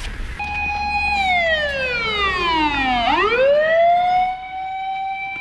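Fire engine siren: a single pitched tone that holds, slides down over about two seconds, then sweeps quickly back up and holds high.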